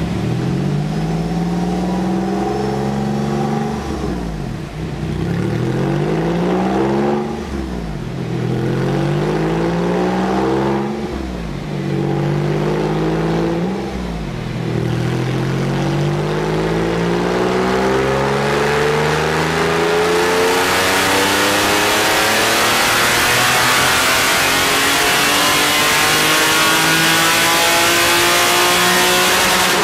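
Porsche 911's water-cooled flat-six at full throttle on a chassis dynamometer during a power run. The engine note climbs and drops back at each of four gear changes, then rises in one long sweep to the top of the rev range near the end.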